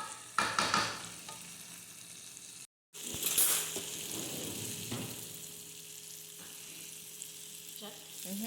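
Shrimp and seasonings sizzling as they sauté in a pan, with a spoon stirring and scraping through them, loudest near the start and again a little after three seconds. The sound cuts out completely for a moment just before three seconds.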